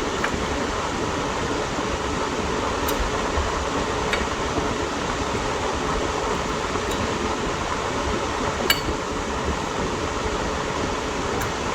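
Steady rushing noise of a fan running, with a few light metallic clinks as brake parts and tools are handled; the sharpest clink comes about nine seconds in.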